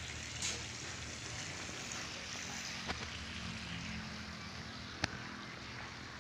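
Steady outdoor background noise with wind on the microphone and a faint low hum, broken by three short sharp clicks.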